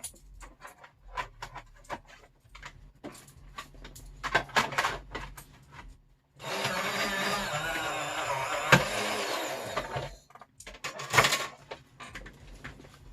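Electric Big Shot die-cutting and embossing machine running for about four seconds, midway through, as it feeds a card in an embossing folder through its rollers. Before and after the motor there are sharp clicks and knocks of the machine and folder being handled.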